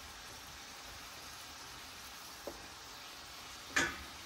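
Vegetable stew simmering in a cast-iron skillet with a steady soft sizzle. There is a small tap about two and a half seconds in and a sharper knock near the end as chunks of sweet potato are dropped into the pan.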